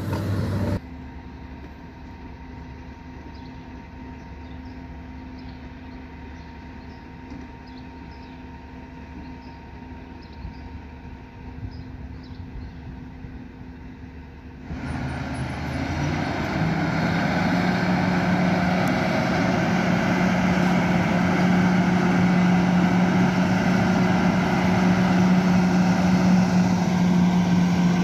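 Caterpillar motor grader's diesel engine running close by: a loud, steady drone that steps up slightly in pitch a couple of seconds after it comes in, about halfway through. Before that, a quieter steady machinery hum.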